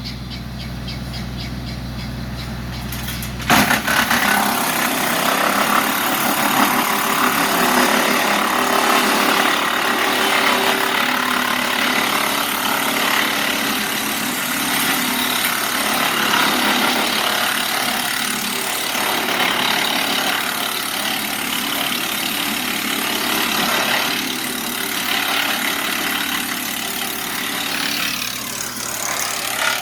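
Wood chipper running at a steady hum, then about three and a half seconds in a long branch catches in the chipper and is chewed up with a loud, continuous chipping noise that runs on, rising and falling a little as the branch feeds through.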